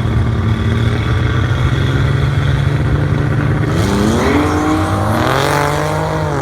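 Turbocharged drag-racing cars, a turbo 202 six-cylinder Holden Gemini and a turbo V6 VP Commodore, running steadily at the start line, then revving up hard as they launch about four seconds in.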